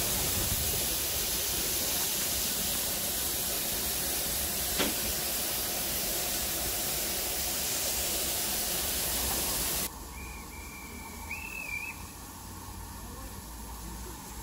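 Steam locomotive standing at the platform with steam hissing loudly and evenly. The hiss cuts off suddenly about ten seconds in, leaving quieter station sound with a short, high, wavering whistle.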